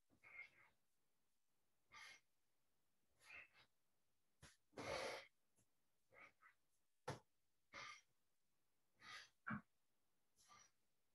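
Faint, short breaths and exhalations at irregular intervals of about a second, from a person swinging the arms in a qigong exercise. The longest breath comes about halfway through.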